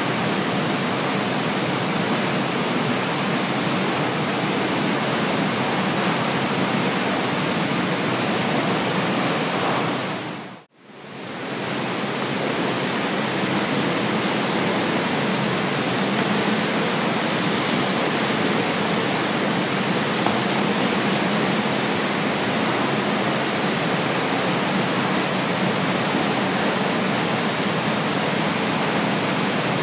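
Coal belt conveyor of a rail car unloading system running loaded: a steady, loud rushing noise. About eleven seconds in it drops away to near silence for a moment and comes straight back.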